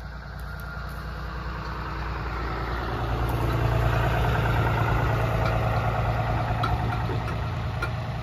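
Pickup truck towing a flatbed trailer running slowly along a gravel road, a steady low engine hum that grows louder a few seconds in and then eases off.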